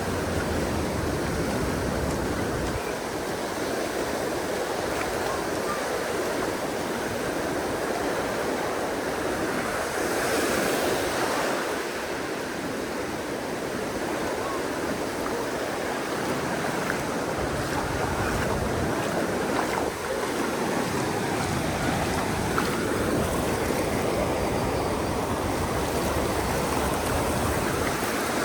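Ocean surf washing onto a sandy beach, a steady roar of breaking waves that swells louder about ten seconds in as a bigger wave comes in.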